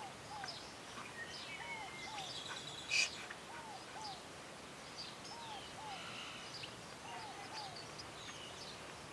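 Birds calling outdoors: a short arched note repeated in pairs about every second, with scattered higher chirps over a steady outdoor background. A brief, louder sharp sound comes about three seconds in.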